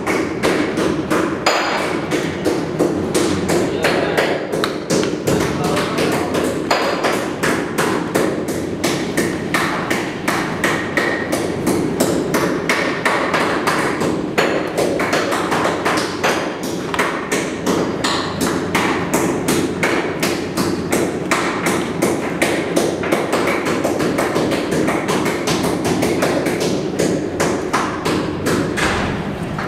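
Blades chopping meat and bone on a steel table: a dense run of irregular knocks, several a second, over a steady background din.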